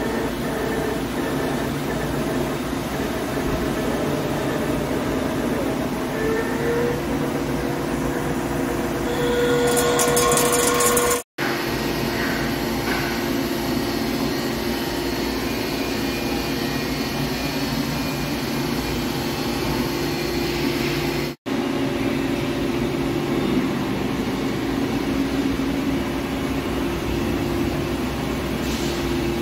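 Heavy CNC lathe running steadily while machining a forged steel roll shaft, a continuous mechanical hum with some steady tones. The sound drops out twice for an instant, about a third and two-thirds of the way through.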